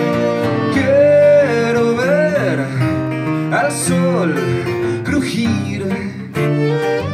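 Live acoustic song: an acoustic guitar strummed with a bowed violin and a transverse flute. Over it, a man's voice sings a few bending, sliding phrases through the middle.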